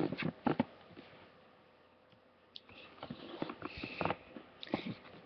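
Handling noise from a camera being carried and turned around the room: scattered soft knocks, taps and rustles, with a second or so of near silence in the middle.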